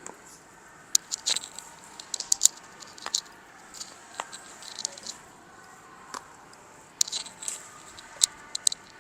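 Joints cracking under hands-on manipulation: a series of short, sharp cracks and pops in uneven clusters, several close together at a time.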